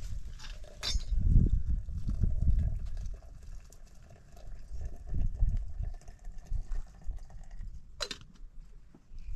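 Hot water poured from a black kettle into a small metal teapot, with an uneven low rumble of wind on the microphone. A sharp click sounds about a second in and another near the end.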